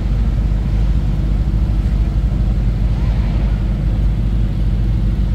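Sports car engines running with a loud, steady low rumble.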